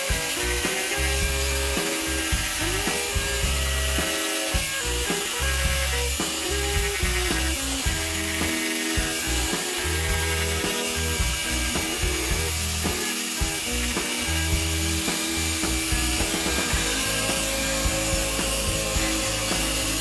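Arbortech Ball Gouge on an angle grinder cutting grooves into wood: a steady, high, rasping hiss of the spinning cutter chewing through the grain, over background music.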